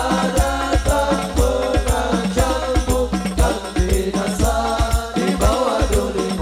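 Male voices singing a sholawat melody together over hadrah percussion: frame drums (rebana) beating a quick, steady rhythm with a rattling percussion layer.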